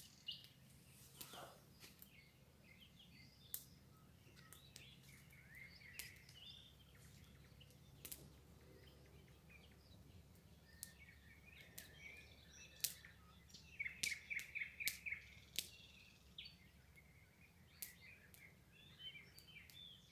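Wild songbirds chirping and calling at a riverside, with a quick run of repeated notes a little past the middle. Scattered sharp clicks sound between the calls.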